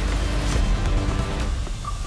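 Background theme music with a heavy bass line, thinning out and dropping in level near the end.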